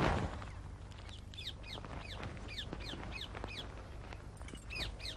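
Birds calling: a run of short chirps that fall in pitch, about two a second, with a louder call right at the start.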